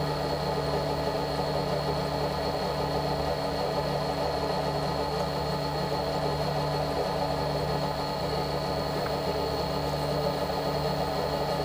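Small bench lathe motor running steadily with an even hum, spinning a clock wheel arbor while a fine drill is hand-fed into its end to take a new pivot.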